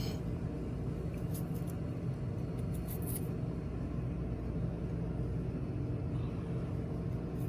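Steady low hum throughout, with a few faint short clicks of a knife on a chopping board as coconut flesh is cut into small pieces.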